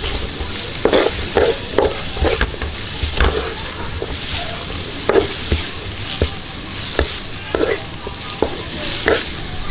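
Julienned ginger, chili and scallion sizzling in hot oil in a wok, with repeated scrapes of a wooden spatula across the pan as it is stir-fried.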